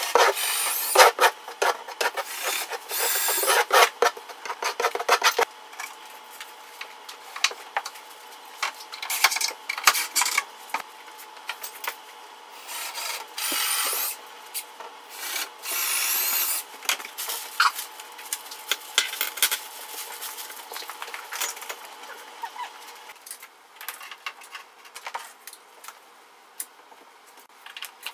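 Steel trowel scraping tile mastic across the backsplash wall in quick repeated strokes for the first five seconds or so. After that come quieter scrapes and rustles, and near the end light clicks of hexagon mosaic tile sheets being handled and pressed into the mastic.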